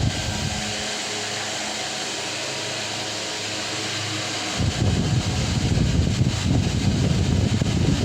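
Delta Gold 50 cm wall fan running, with a steady motor hum. About halfway through, a gusty low rumble of air rushing over the microphone comes in.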